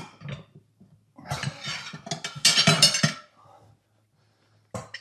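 Steel tire levers clinking and scraping against a riding-mower wheel rim and tire as the tire is pried off the rim: a sharp click at the start, then about two seconds of dense metal clatter beginning a little over a second in, and another click near the end.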